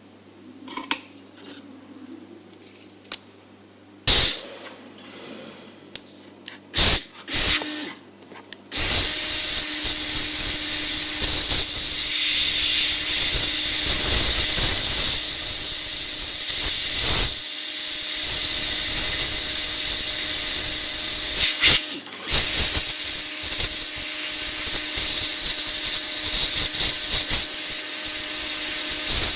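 A few clicks and handling knocks, then about nine seconds in a hot-air rework gun starts blowing: a loud steady hiss with a faint hum under it, broken briefly near 22 seconds. It is heating a transistor on the spare power-supply board to lift it off.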